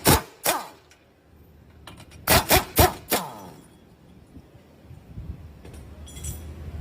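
Sharp metallic knocks during stabilizer bushing work on a car's suspension: a few at the start, then three loud ones in quick succession about two and a half seconds in, the last one ringing briefly.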